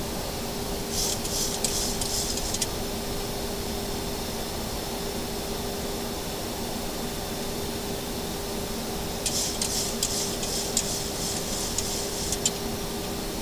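Steady background noise on a Boeing 737-800 flight deck in flight: an even hiss with a constant low hum. It is broken twice by brief patches of crackling rustle, about a second in and again for a few seconds near the end.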